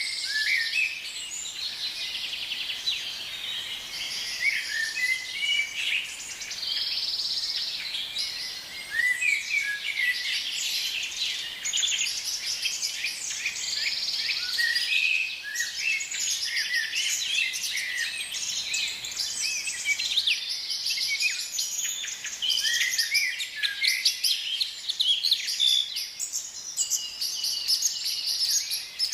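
Many small birds chirping and singing at once, a dense chorus of overlapping short calls that never lets up.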